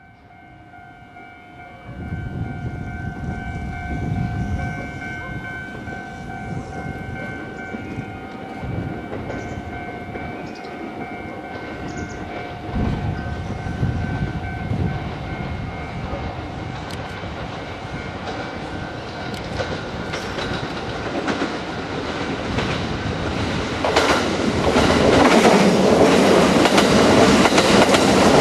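Kintetsu 50000 series 'Shimakaze' limited express running through a station without stopping. Its rumble grows steadily as it approaches, then becomes a loud rush of wheels on rail as the cars pass close by in the last few seconds.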